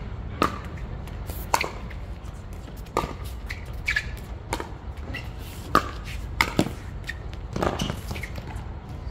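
Pickleball rally: sharp, hollow pops of paddles striking a plastic pickleball and the ball bouncing on the hard court, about ten irregularly spaced hits over a steady low background rumble.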